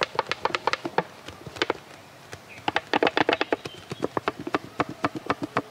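Large plastic bottle being squeezed and handled, its walls crackling in quick runs of sharp clicks and taps.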